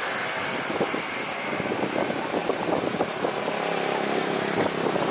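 Jet engines of an Airbus A330 running at low power as it taxis and turns on the runway, a steady noisy hum, with wind buffeting the microphone in uneven crackles.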